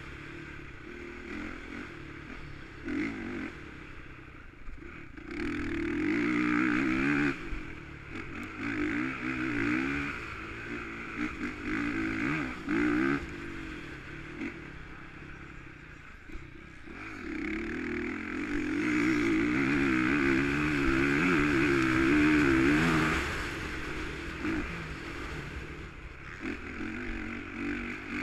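Motocross bike engine heard onboard from the rider's helmet, revving up and easing off again and again as the throttle opens and closes through the corners and straights, with two long hard pulls, the longer one in the second half.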